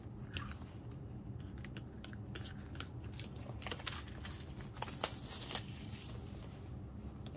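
Plastic shrink-wrap being peeled and torn off a boxed album by hand, crinkling with scattered sharp crackles.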